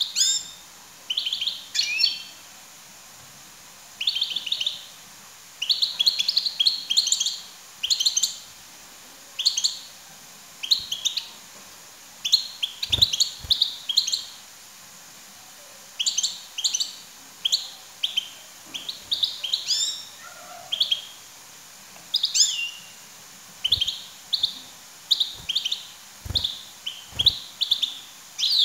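European goldfinch calls: short bursts of rapid, high chirps and twitters, one burst every second or two. These are the female goldfinch calls that are played to a caged male to set him singing.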